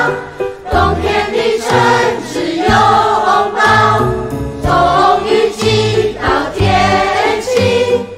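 A Chinese-language pop song: voices singing the lyrics over a backing track with a steady beat.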